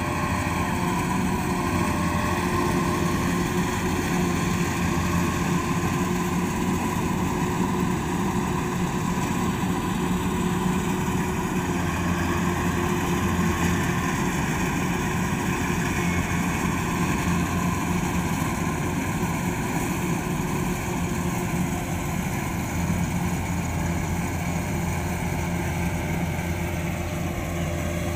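Kubota DC-93 combine harvester's diesel engine and threshing machinery running steadily while it cuts rice, an even, unchanging drone.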